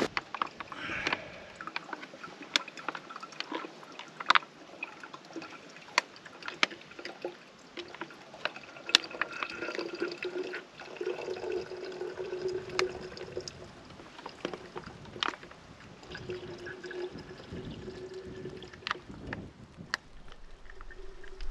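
Water pouring and trickling into a container, with many sharp clicks and knocks of gear being handled.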